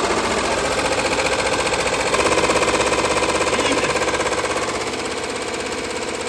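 HappyJapan 15-needle commercial embroidery machine stitching onto a knitted beanie at about 1,000 stitches a minute: a fast, steady mechanical chatter of the needle going up and down, a little louder from about two seconds in.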